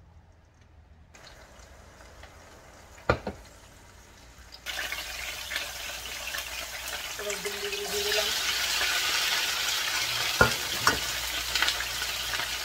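Hot oil sizzling as food fries on the stove, starting abruptly about a third of the way in and getting louder a few seconds later. A sharp knock comes before the sizzling starts, and two clicks come near the end.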